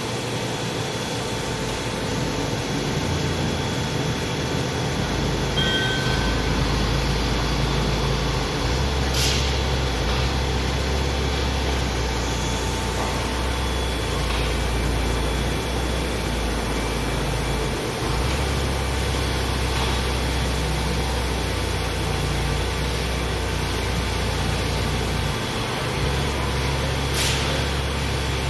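Mori Seiki NH6300DCG II horizontal machining center running with its axes traversing, a steady machine hum under a low drone that comes in a few seconds in and drops out briefly twice as the moves stop and start. Two brief sharp sounds, about eighteen seconds apart, stand out over the hum.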